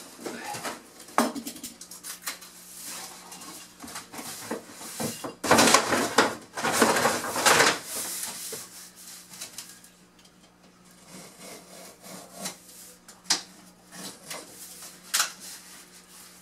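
A large sheet of paper underlayment rustling and sliding as it is spread and pressed down by hand on a wooden subfloor, loudest for a couple of seconds midway, with a few sharp taps.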